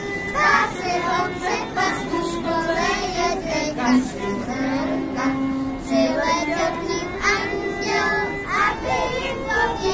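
Group of young girls singing a folk song together, with musical accompaniment under their voices.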